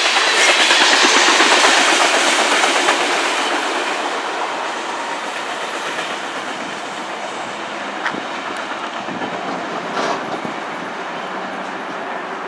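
A freight train of tank cars rolling past, the wheels clattering over rail joints. The noise is loudest near the start and slowly fades as the train moves away, with a couple of sharper clacks late on.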